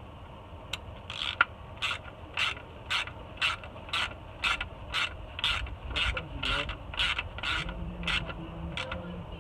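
Ratchet wrench being worked on a drain plug of a 2005 Porsche Cayenne S, the pawl clicking in short rasping bursts about twice a second with each back-swing.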